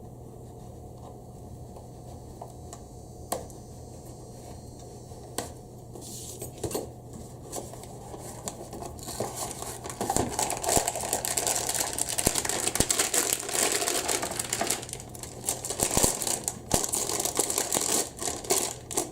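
Plastic packaging crinkling and rustling as a GoPro clamp mount is unwrapped. A few scattered clicks come first, then about halfway through the crinkling turns dense and louder.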